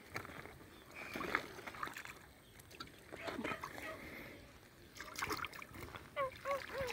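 Faint, irregular splashing of shallow pond water as a toddler stands and steps in it, with a few faint voices.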